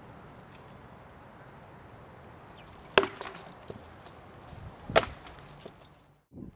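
Rattan swords striking shields and armour in SCA armored combat sparring: two sharp wooden cracks about two seconds apart, with a few lighter knocks between and after. The sound cuts off abruptly near the end.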